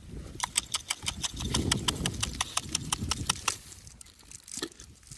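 A quick, even run of sharp clicks or taps, about six a second, lasting about three seconds over a low rumbling.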